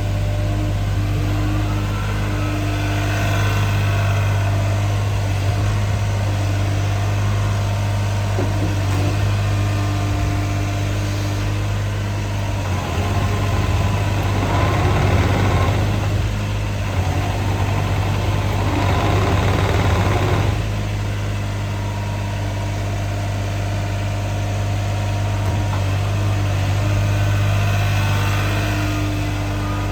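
JCB 50Z-2 mini excavator's diesel engine running steadily. It grows louder twice past the middle, for a few seconds each, as the machine works harder.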